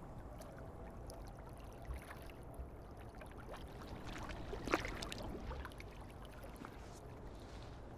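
Swimming-pool water lapping and sloshing softly, with one brief sharper water sound a little under five seconds in.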